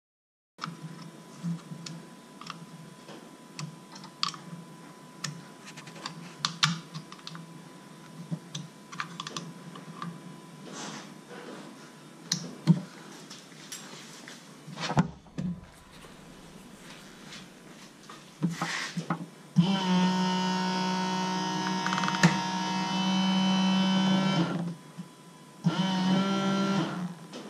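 Small scattered clicks and knocks of a screwdriver and trim parts being handled at the roof flap. About two-thirds of the way through a steady electric hum starts, stops after about five seconds and starts again near the end: the Mercedes SLK230 Vario roof's hydraulic pump running as the roof moves.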